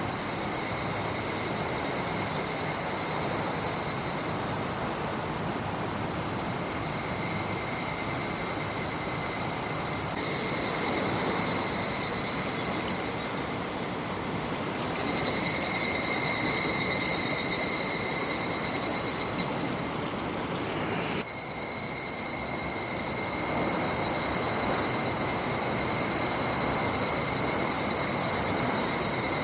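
Higurashi cicadas calling in a continuous high, ringing trill that swells louder about halfway through, over the steady rush of a mountain river.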